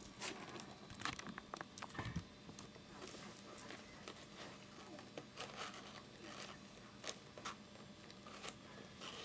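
Hands handling a sealed trading-card hobby box and its plastic wrap: scattered faint rustles, light scrapes and small clicks.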